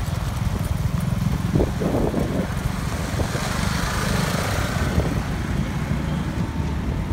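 Street traffic: a motor vehicle passes close by, swelling and fading around the middle, over a steady low rumble of road noise.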